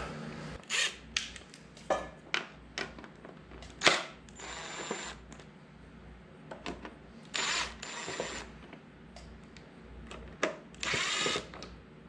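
Cordless drill running in three short runs of about a second each, backing out bolts, with short knocks between the runs.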